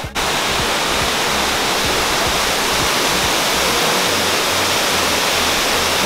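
Waterfall pouring over rock: a steady, loud rush of falling water, with a brief drop right at the start.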